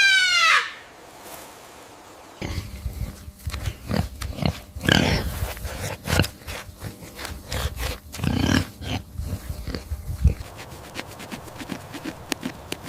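A high, trumpet-like call slides down and ends within the first second. After a short pause, an animal gives a run of low, rough grunts and snorts with a few sharp clicks for about eight seconds, then falls quiet.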